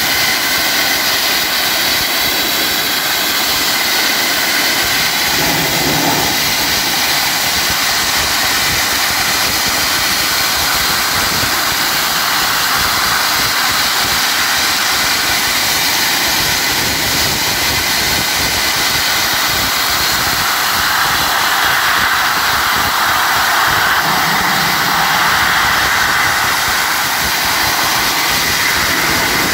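Wet abrasive blasting nozzle spraying a water-and-grit mix under compressed air against rusty steel, stripping it to bare metal: a steady, loud hiss.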